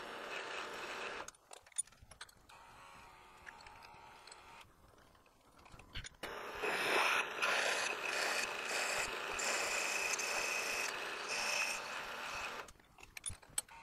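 PM 727 milling machine's spindle running as a half-inch through hole is drilled and reamed in a metal block. The cutting noise stops about a second in, then the spindle runs again from about six seconds with a steady high whine until near the end, followed by a few light clicks.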